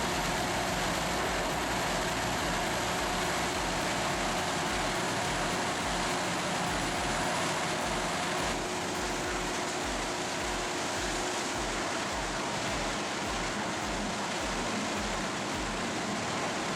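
Heavy wood-processing machinery running steadily, a dense continuous mechanical noise with faint steady tones, shifting slightly about eight seconds in.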